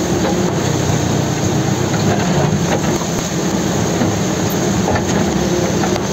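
ELEX 81A backhoe loader's engine running steadily under load as the rear bucket digs into wet ground, with heavy rain pouring down and a few sharp knocks.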